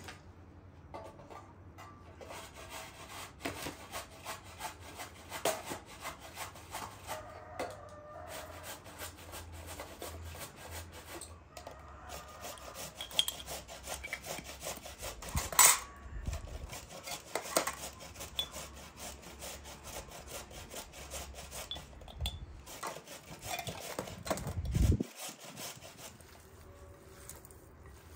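Hand food preparation of ground meat and grated onion: long runs of rapid rubbing and scraping, with a few sharp knocks, the loudest about halfway through. Near the end, softer sounds of the meat and onion being worked by hand.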